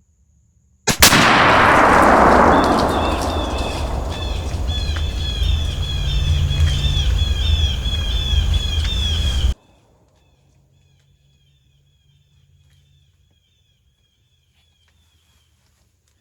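A single shot from a .243 Handi Rifle, short-barrelled and loud inside the hunting blind, about a second in. It is followed by a long, loud rumbling decay that cuts off abruptly a few seconds before the end. Rhythmic chirping continues in the background.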